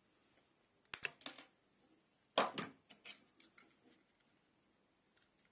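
Diagonal side cutters snipping at a white coaxial cable: sharp clicks about a second in, then a louder cluster of crunchy clicks and snips around two and a half seconds in.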